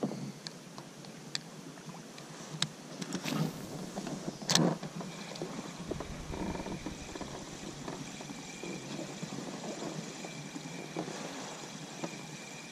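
Scattered knocks and clicks from an inflatable fishing boat and its gear on the water, the loudest about four and a half seconds in, over a faint steady hiss.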